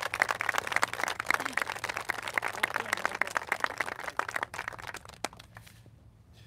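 Audience applauding with many hands clapping, dying away about five seconds in.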